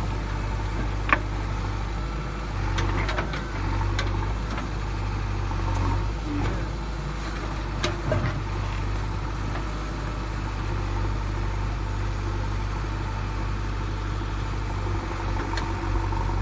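A steady, low engine idling sound, with a few sharp clicks and taps scattered through it.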